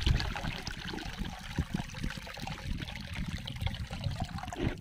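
Fish-pond water sloshing and trickling close by, with soft low thuds, as a gill net is worked by hand in the water.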